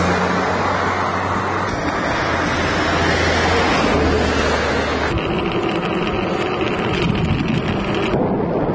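Rushing wind noise with a low, steady motor-vehicle engine hum under it for the first five seconds or so; the hum then stops and the noise changes abruptly, and changes again near the end.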